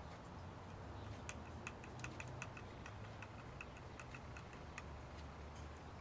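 Faint, fairly even clicking, about five light clicks a second, starting about a second in and stopping near the end, over a low hum.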